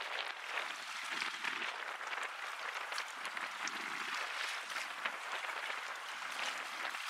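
Small harbour waves lapping and splashing at the water's edge: a steady crackling hiss of water, with a couple of softer swells about a second in and again midway.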